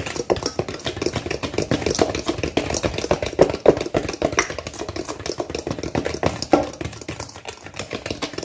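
Wire whisk beating butter, sugar and egg batter by hand in a stainless steel bowl: a fast, steady run of clicking, scraping strokes against the metal as the mixture is creamed and aerated.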